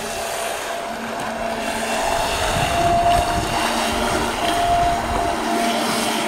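Streamline RC Thrasher electric RC jet boat running in tight circles, its motor and jet pump giving a steady whine as it churns up the water. Wind rumbles on the microphone for a few seconds in the middle.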